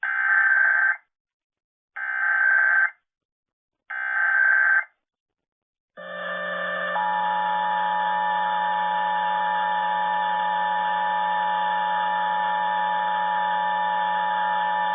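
Emergency Alert System SAME header: three warbling data bursts, each about a second long and two seconds apart. From about six seconds in, the steady two-tone EAS attention signal follows and holds without a break.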